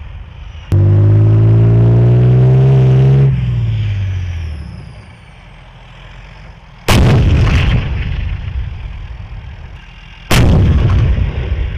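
Two main-gun shots from a Leopard 2 tank's 120 mm smoothbore, a little over three seconds apart. Each is a sudden blast followed by a long rolling rumble. Before them, a loud engine drone rises slightly in pitch for a few seconds and then fades away.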